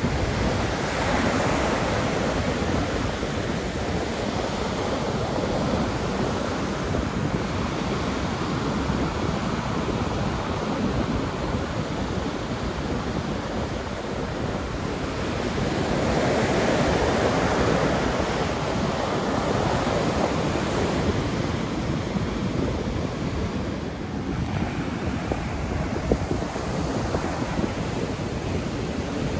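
Heavy Pacific surf breaking and washing up a sandy beach in a steady rush of noise, swelling louder as a big wave breaks about sixteen seconds in. Wind buffets the microphone.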